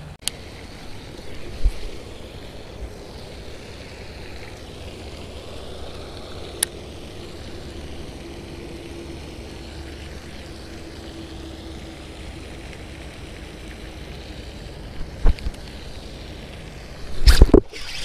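Steady outdoor background noise with a few sharp clicks and knocks, then a loud burst of rumbling handling noise against the camera near the end.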